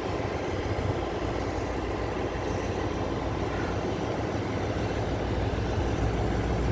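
Taiwan Railway R167 diesel-electric locomotive running with a steady low engine rumble as it approaches slowly, growing gradually louder.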